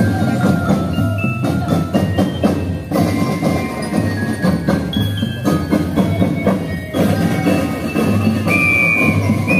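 School drum and lyre corps playing a march: metal bell lyres ring out the tune over a steady beat of marching drums.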